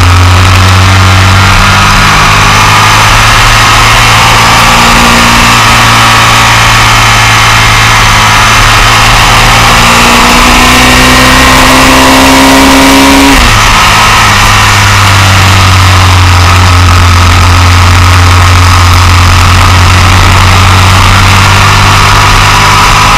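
Sport motorcycle engine running hard at high revs, heard from a low onboard camera with loud wind rush over the microphone. About thirteen seconds in, the rising engine note drops abruptly at an upshift, then runs on steadily.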